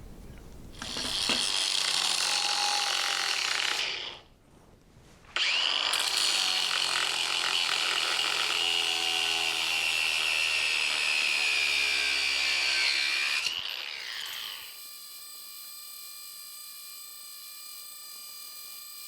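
Power tool cutting through a steel wrench's shaft, in two runs with a short pause between them. The high whine sags slightly as it cuts. A quieter steady hum follows for the last few seconds.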